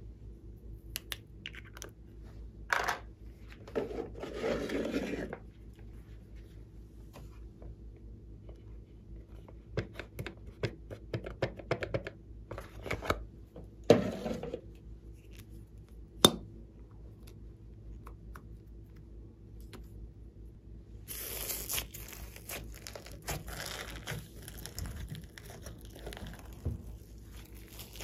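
Close-up handling sounds of slime play: scattered small taps, rustles and a few sharp clicks as small items are handled over a slime tray. In the last quarter this gives way to continuous crackling and squishing as hands press and spread slime over foam beads.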